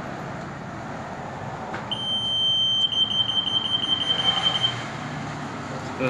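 RF 8.2 MHz EAS anti-theft gate alarm going off about two seconds in: a high steady beep that breaks into rapid beeping for about three seconds, then fades out. The antenna pedestal is detecting a security tag on a garment carried through the gate.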